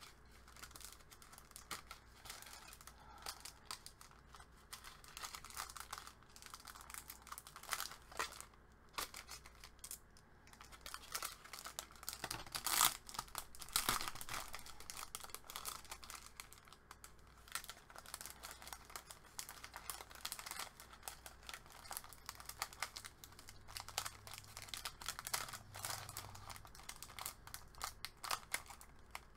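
Paper rustling and crinkling as it is handled, with scattered small clicks; the loudest rustles come about 13 and 14 seconds in.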